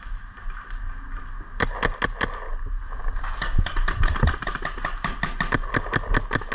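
Paintball marker firing rapid strings of shots, about six or seven pops a second, starting about one and a half seconds in, with a short lull near the middle.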